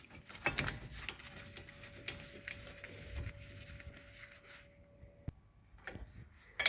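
Scattered light metallic clicks and taps as the lower 14 mm caliper bolt on the front brake caliper is fitted and started by hand.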